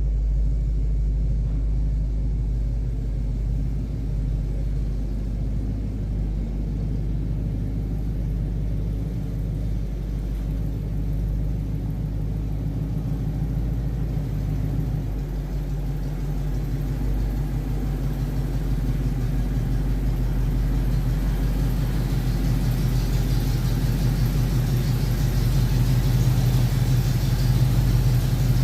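A vehicle engine running steadily, getting louder in the last few seconds.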